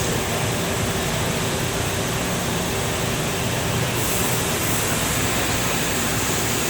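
Cincinnati 340-20 twin-grip centerless grinder running, a steady machine noise. A steady hum stops about four seconds in, and a higher hiss grows louder.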